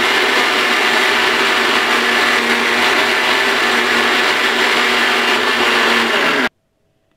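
Electric mixer grinder running at full speed, grinding soaked fenugreek seeds with their soaking water into a thick batter. The steady motor-and-blade whir starts abruptly and cuts off suddenly about six and a half seconds in.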